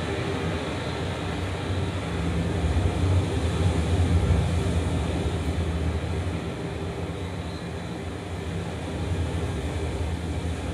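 A steady low rumbling drone with an even hiss above it, swelling a little about three to four seconds in.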